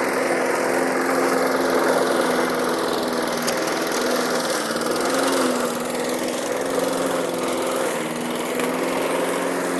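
Walk-behind petrol lawn mower engine running steadily as the mower is pushed up a steep grassy slope, its pitch shifting slightly about five seconds in.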